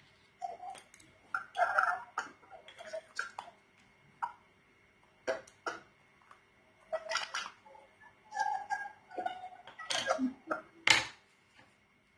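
Irregular light clicks and taps of small objects being handled and set down: makeup cases, lids and brushes being picked up and put back, a dozen or so with short pauses between.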